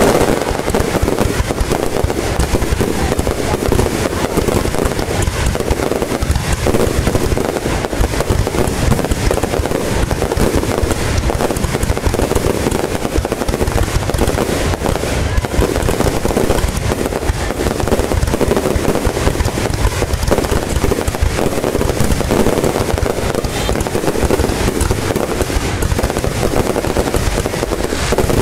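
Fireworks display: a dense, continuous barrage of bangs and crackle, with no pause between bursts.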